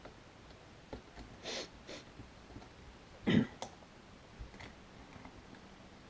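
Small clicks, a brief scrape and one louder knock about three seconds in, as a plastic PEQ-style battery box is worked loose and lifted off the rail of an airsoft M4.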